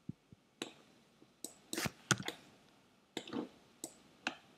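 A string of about ten short, sharp clicks at uneven spacing from a computer mouse and keyboard, with quiet between them.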